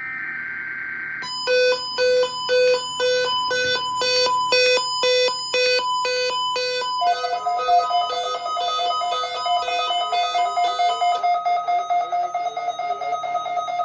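Weather radio playing an EAS required weekly test: a last burst of the screeching SAME header data tone, then, from about a second in, the radio's electronic alert beeping in a fast pulsing pattern, about two beeps a second. About seven seconds in it changes to a steadier, slightly warbling alert tone.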